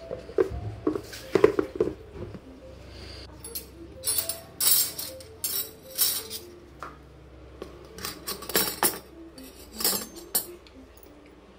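Metal utensils clinking and scraping against stainless-steel dishes, a spoon working in a steel food container, in an irregular series of sharp clinks. Soft background music plays under it.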